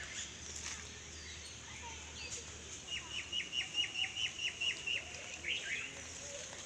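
A bird calling: a quick run of about a dozen short, falling notes over two seconds, with other scattered bird chirps around it.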